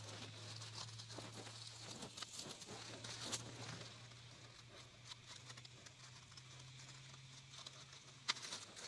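Faint rustling and light scattered clicks of tomato plant foliage as dead leaves are pruned off by hand, with a sharper click near the end. A low steady hum runs underneath.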